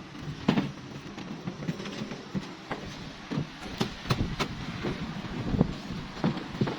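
Irregular knocks and clatter of construction work, several sharp hits a second at times, over a steady background noise.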